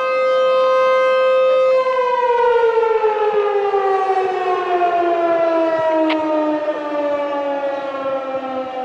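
ASC T-128 rotating dual-tone electromechanical warning siren holding a steady tone, then about two seconds in starting to wind down, its pitch falling smoothly and steadily. Echoes come back off the surrounding buildings.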